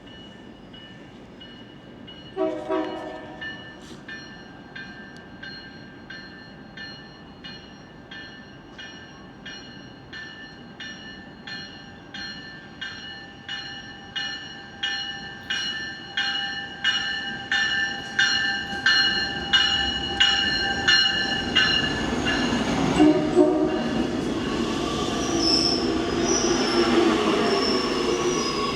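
Metra Electric commuter train arriving. It gives a short horn blast, then its bell rings steadily at about two strikes a second, growing louder as the train approaches. The horn sounds again about 23 seconds in, followed by rising rumble and a high wheel squeal as the train pulls into the station.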